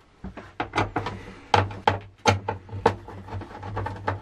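Irregular clicks and light knocks of a screwdriver and hands working on the motherboard's screws in a steel server chassis, metal tapping on metal about two or three times a second.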